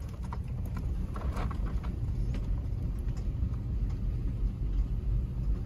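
Toyota Tacoma pickup rolling slowly down a steep gravel road, heard from inside the cab: a steady low rumble of tyres and drivetrain, with a few faint ticks from loose stones.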